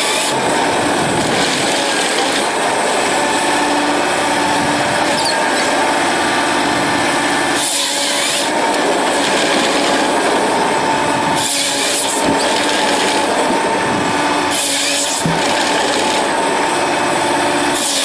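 Forestry harvester working: its engine and hydraulics run steadily while the harvester head feeds and bucks logs. Its chain saw cuts through the log three times, each a short, sharper hiss, about 8, 12 and 15 seconds in.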